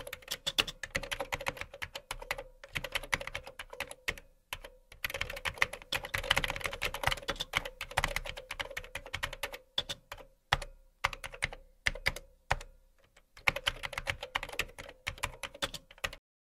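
Computer keyboard typing sound effect: rapid key clicks in runs broken by short pauses, stopping near the end.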